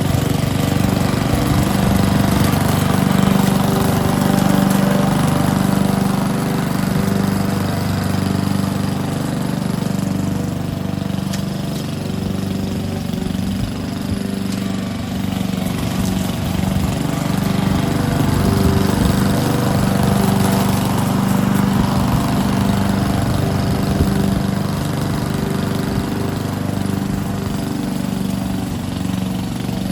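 A 21-inch Honda walk-behind lawn mower's four-stroke engine running steadily, with the blade turning while it picks up fallen leaves.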